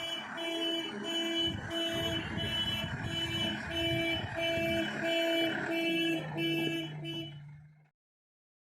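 Backhoe loader's reverse alarm beeping about twice a second over its diesel engine running. Both cut off suddenly near the end.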